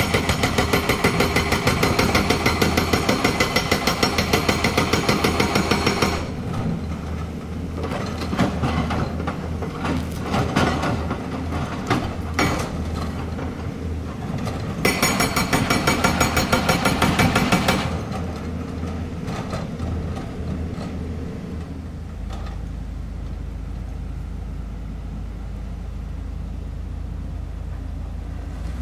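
Hydraulic rock breaker on a tracked excavator hammering rock in rapid, even blows for about six seconds, stopping, then hammering again for about three seconds past the middle. In between and afterwards the excavator's diesel engine runs, with scattered knocks of rock.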